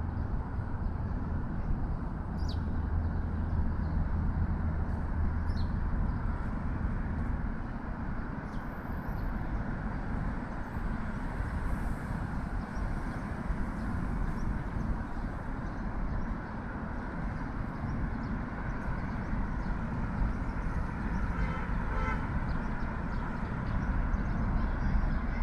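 Steady city road traffic, with a vehicle's low engine hum in the first several seconds, a few short high chirps, and a brief car horn toot near the end.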